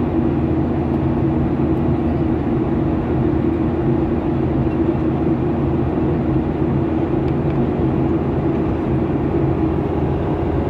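Steady cabin drone of a Boeing 737-800 airliner in flight: even rushing air and jet engine noise with a steady low hum underneath.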